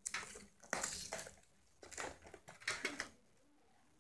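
Cardboard box and its plastic insert handled, rustling and clattering in several short, irregular bursts as the darts are taken out.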